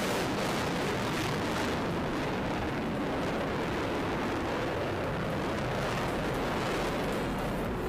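HAL Tejas fighter's single GE F404 turbofan heard from the ground as the jet flies overhead: a loud, steady rushing noise whose high hiss dims after about two seconds.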